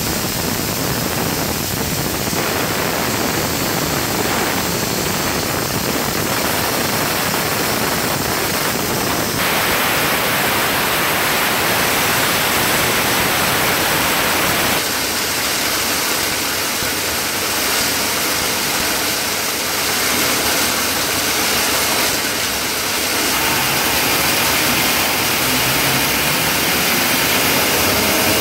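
PS-21EC S4 bottle-cap inspection machine running: the steady, loud noise of its cap feeder, spinning disc and vacuum conveyor, with no clear tone. The sound changes character abruptly about a third of the way through and again about halfway.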